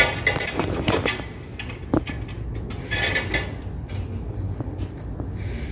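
Rustling and scattered small clicks, with one sharp knock about two seconds in, over a low steady rumble.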